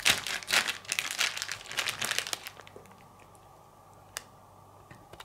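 A plastic freezer bag holding marinated steaks crinkling as it is handled. The crinkling stops about two and a half seconds in, and one sharp click follows near the end.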